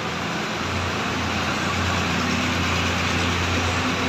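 An engine running steadily at idle, a low even hum over a broad wash of street noise.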